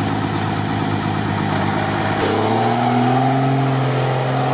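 An engine idling steadily, then about two seconds in a heavy IFA off-road truck's engine working under load as the truck drives through mud, its note rising gradually.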